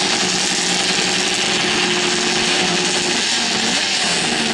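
Several racing snowmobile engines running loudly at a drag-race start line, one holding a steady, slightly rising drone. Near the end the engines begin revving up, their pitch climbing.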